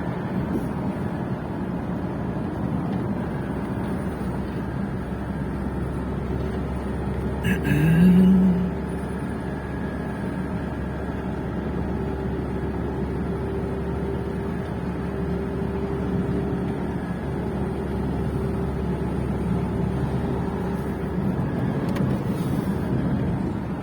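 Steady road and engine noise heard from inside a moving vehicle, with a constant low drone. About eight seconds in there is a brief, louder sound with a short rising pitch.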